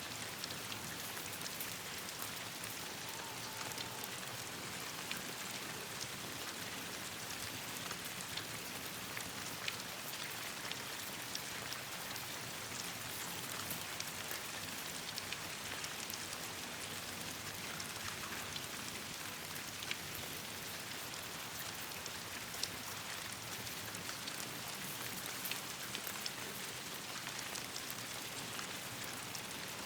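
Steady rain falling on leaves and branches, a dense, even patter, with scattered sharp ticks and pops throughout.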